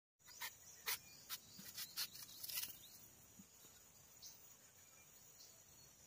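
A quick run of sharp clicks over the first three seconds. Crickets chirr steadily and faintly in the background.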